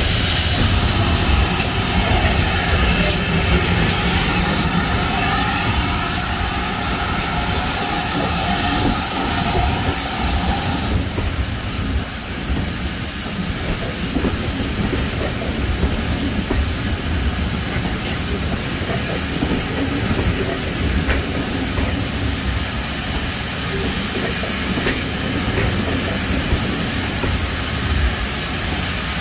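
GWR Manor-class 4-6-0 steam locomotive Foxcote Manor blowing off at its safety valve, a loud steady hiss that eases about eleven seconds in. Under it and after it comes a steady low rumble as the train pulls out and its coaches roll past.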